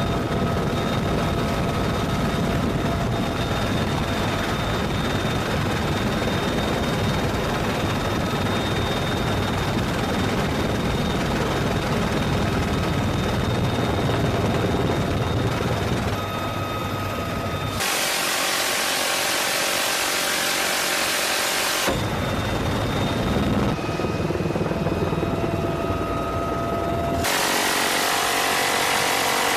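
UH-1Y Venom helicopter heard from inside the cabin: steady rotor and turbine noise with a steady high whine over it. About eighteen seconds in, and again near the end, a harsher, higher rasp takes over for several seconds.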